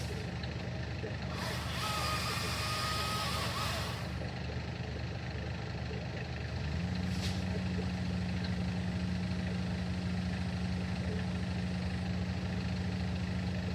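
Heavy diesel truck engine running steadily, with a hiss of released air lasting about two and a half seconds early on and a short hiss later. About seven seconds in, the engine speeds up and holds at a higher steady pitch.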